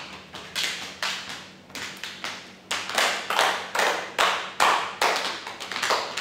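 A group hand-clapping game: several people clap their own hands and slap each other's palms in a steady rhythm of sharp claps, about two to three a second, growing louder about halfway through.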